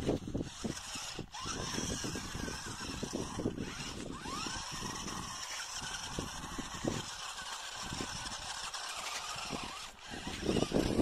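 A 1/16 scale 4WD RC rock crawler driving over loose sandy dirt: the whine of its small electric drive motors and gears, with irregular crunching and crackling from the tyres in the dirt.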